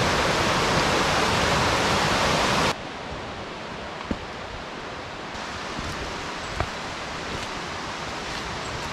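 Steady rushing of a small waterfall on a forest creek, cutting off suddenly about three seconds in to a much quieter outdoor hush with a few faint clicks.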